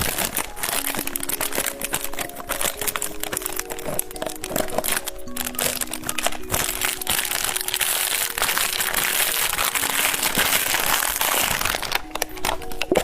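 Crinkling of a candy wrapper as a White Rabbit milk candy is unwrapped, a dense crackle that stops about a second before the end, over background music with a simple held-note melody.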